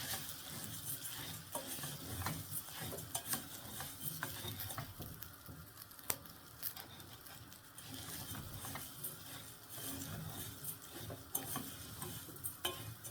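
A spoon stirring rice into meat and spices in a hot pot, with light sizzling and the spoon's irregular scrapes and clicks against the pot.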